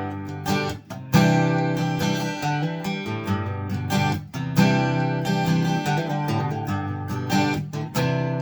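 Takamine EF-349 dreadnought acoustic guitar being strummed, ringing chords with a hard strum just over a second in and another about four and a half seconds in.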